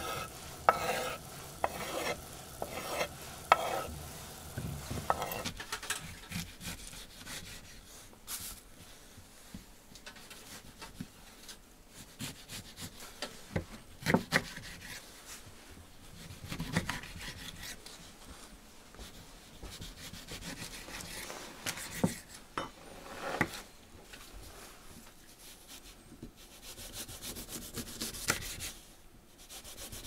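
For the first few seconds, a quick series of taps and knocks as spice is tapped off a wooden cutting board into a steaming pot. Then a kitchen knife slices oranges and lemons on a wooden cutting board, with scattered knocks of the blade on the board and a stretch of rasping cuts through the peel near the end.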